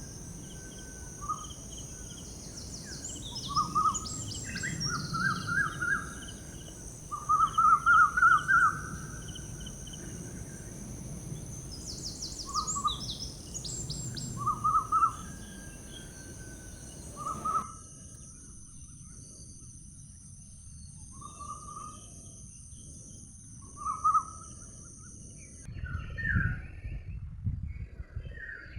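Songbirds chirping and trilling in repeated short phrases over a steady, high-pitched insect-like drone. The background hiss cuts out abruptly about two-thirds of the way in, and the high drone stops near the end.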